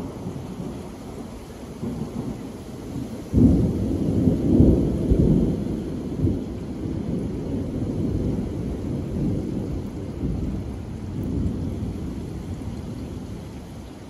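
Steady rain falling. About three seconds in, a low rumble of thunder breaks in suddenly, then rolls and fades away over the next ten seconds.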